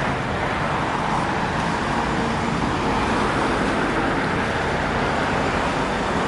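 Steady road traffic noise, with cars going by on a busy street.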